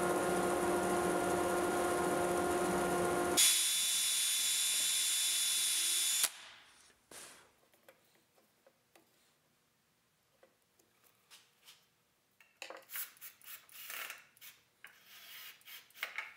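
Bandsaw running and cutting a wooden part, with a steady motor tone and a higher whine added about three and a half seconds in; it cuts off suddenly about six seconds in. Then faint clicks, and near the end irregular scratching from a hand tool worked on a steel strip.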